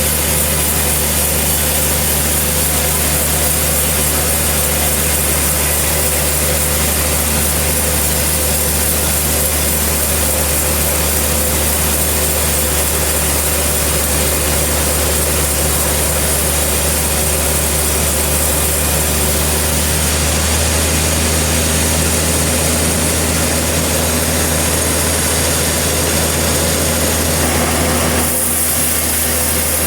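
Sawmill's engine running steadily under continuous load, its tone shifting about twenty seconds in and again near the end.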